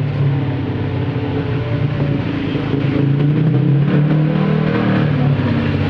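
An engine running steadily, its low hum shifting a little in pitch.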